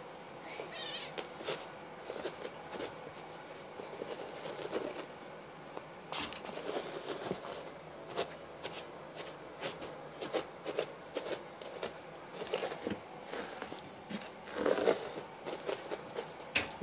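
Kittens scampering and scuffling on carpet: scattered soft scratching, rustling and light taps as they pounce and play.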